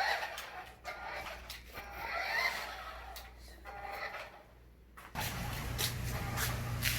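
Small electric motor and gears of a battery-powered 4WD RC toy car whirring in short spurts that rise and fall in pitch, with light clicks. About five seconds in, a steady low hum starts suddenly.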